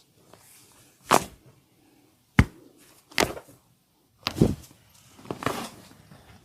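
Neck cracks from a barber's head and neck massage: about five sharp cracks and thuds, roughly one a second, some coming in quick pairs.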